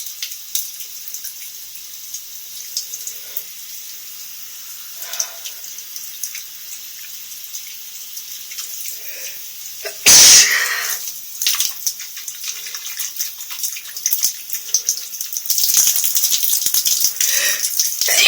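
Shower water spraying and splashing steadily, with one loud sneeze about ten seconds in; the spray grows louder over the last few seconds.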